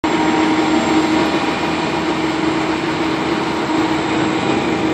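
Concrete mixer truck running with a loud, steady mechanical noise and a constant droning hum.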